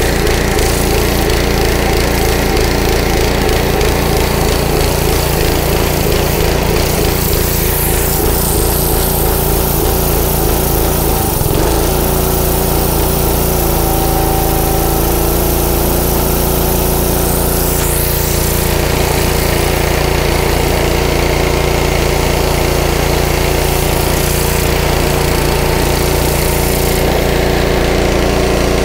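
Honda 5-horsepower pressure washer engine running under load, surging in speed with its pitch shifting now and then, over the hiss of the spray wand hitting concrete. The surging marks a running fault that a little choke clears up, the sign of a lean-running carburettor.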